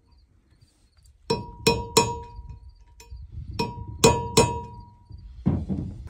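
Small sledgehammer striking a steel punch to drive a broken shear bolt stub out of a combine drive sheave's hub. Six sharp metallic hits come in two groups of three, each ringing briefly.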